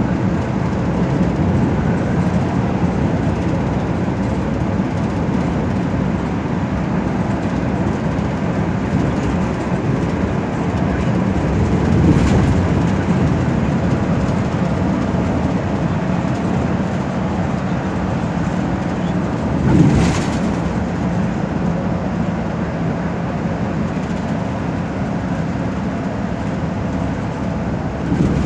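A Gyeongwon Yeogaek M6410 express bus running steadily, with constant engine and road rumble, heard from inside the cabin. Two brief thumps come through, about twelve and twenty seconds in.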